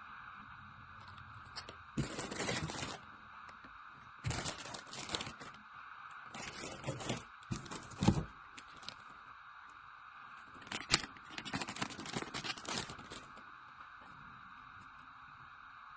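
A series of short tearing, crinkling noises, five bursts of about a second each with a longer one near the end, over a faint steady hum.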